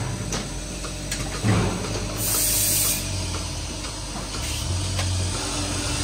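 Robotic milking machine working under a cow: a steady low hum with scattered clicks and a knock, and about two seconds in a short, high hiss lasting under a second.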